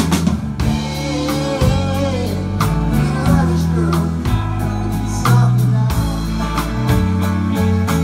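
Live rock band playing an instrumental passage: electric guitar with sliding, bending notes over a bass line and a drum kit.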